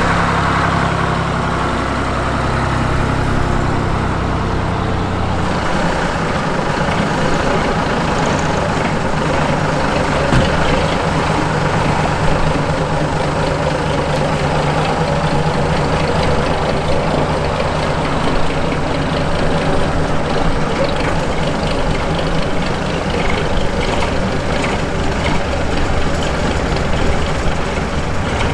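Vintage truck's diesel engine running steadily, turning rougher and busier about five seconds in.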